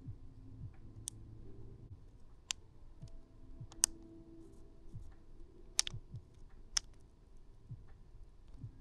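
A few sharp, irregularly spaced clicks of a small plastic port-cleaning tool being worked in and around a phone's charging port.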